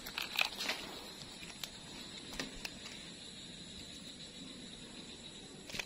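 A steady, high-pitched insect drone, with a few sharp clicks and rustles, most of them in the first second and a couple more around two and a half seconds in.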